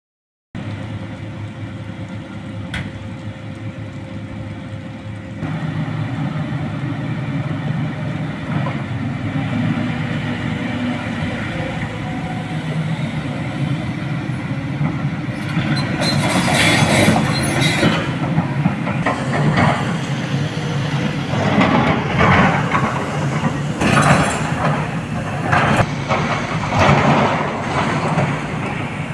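SANY crawler excavator's diesel engine running, its note and loudness stepping up about five seconds in as it works the hydraulics. From about halfway on, irregular clanking and clattering of the steel bucket and tracks in loose quarry rock rides over the engine.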